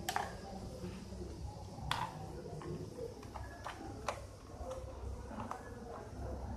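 Small screwdriver clicking and tapping against a tiny screw and the plastic bottom case of a laptop as the screw is worked out: about half a dozen sharp, irregular clicks.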